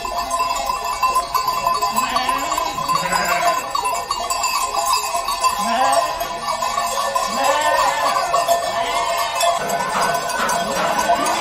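A flock of sheep bleating, with many separate bleats throughout, over the steady jingling and clanking of the flock's bells as the animals walk.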